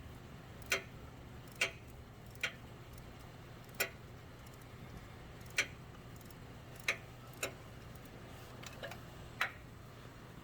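Long ratchet with a 14 mm socket clicking as it backs out a loosened alternator mounting bolt. There are about ten single sharp clicks, unevenly spaced about a second apart, over a faint steady low hum.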